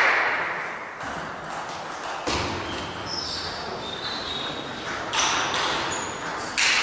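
Table tennis ball clicking off bats and the table in a sports hall. There are a few scattered bounces and a duller knock between points, then a quick run of sharp clicks as a new rally starts about five seconds in.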